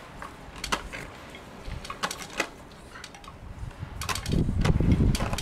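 Keeshond dogs playing with toys on grass: scattered light clicks and rustles, then a louder, rough low sound lasting about a second near the end.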